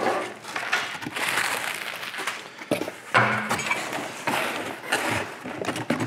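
Cardboard shipping box and bubble wrap being handled: rustling and scraping with many small clicks, and a sharper knock a little under three seconds in.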